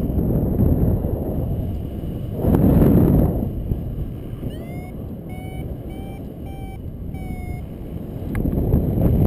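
Wind buffeting the microphone of a paraglider in flight, with louder gusts about two and a half seconds in and near the end. Midway, a flight variometer beeps about three times a second, the sign of the glider climbing in lift.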